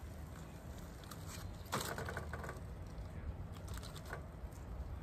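Aluminium foil packet crinkling and rustling as it is turned over and pressed down on a grill, with small taps and a louder crinkle about two seconds in. A steady low hum runs underneath.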